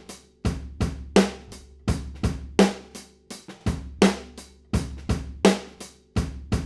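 Drum overhead recording of a full drum kit playing a steady beat, about three hits a second: snare and kick under washing cymbals and hi-hat. It is played back through a vintage-style EQ plugin set to cut harsh high end around 8 kHz.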